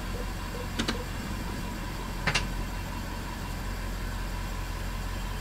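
Jaguar XF 5.0-litre V8 idling steadily, heard from inside the cabin as a low hum. Two light clicks come about a second and two seconds in.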